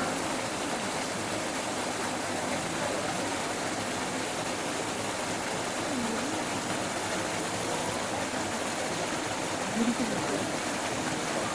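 Steady rush of flowing water, with faint distant voices now and then, a little louder about ten seconds in.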